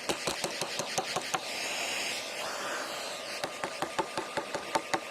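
6-gallon shop vac running while sucking up snow, with rapid sharp clicks and knocks of ice and snow chunks rattling through the hose. The clicking comes in two runs, with a stretch of plain whooshing suction about two seconds in.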